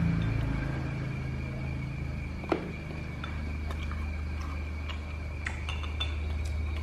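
Wooden chopsticks clicking against a ceramic rice bowl while eating: one sharp clink about two and a half seconds in, then a few lighter clicks, over a steady low hum.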